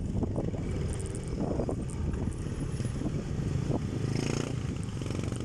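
Motorcycle running along a road in traffic: steady engine and road rumble.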